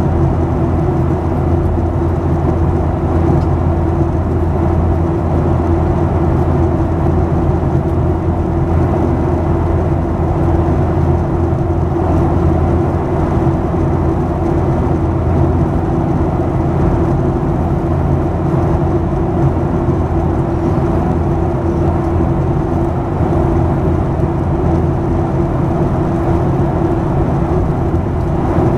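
Boeing 737-800's CFM56-7B turbofan engines and rushing air heard from inside the cabin in flight: a steady drone with a deep hum and a constant mid-pitched tone above it.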